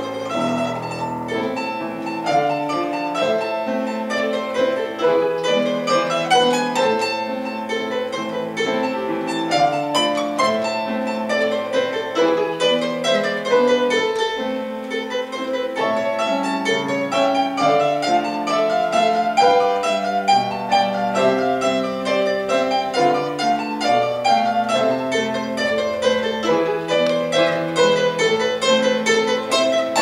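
Domra, a round-bodied Russian folk lute, playing a folk-song melody with a plectrum over a piano accompaniment, without a break.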